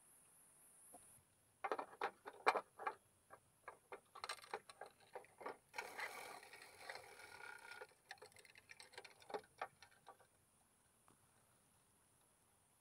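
A clear plastic container being handled: a run of irregular clicks and taps of hard plastic, with a stretch of rustling in the middle, stopping about ten seconds in.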